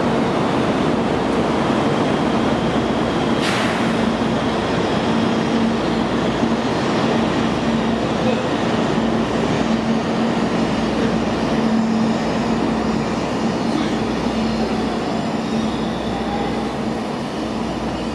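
800 series Shinkansen train pulling out of the platform, its running noise easing off gradually as it draws away. A steady hum runs under it, with a brief sharp noise about three and a half seconds in.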